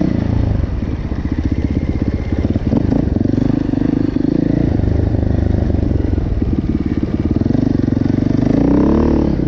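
Single-cylinder four-stroke engine of a KTM 450 EXC-R dirt bike running under way as it is ridden, with the revs climbing near the end.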